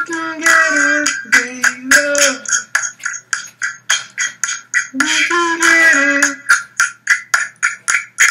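Beatboxing: an even, quick rhythm of mouth-made drum clicks and snaps, with a pitched melody line coming in twice, at the start and again about five seconds in.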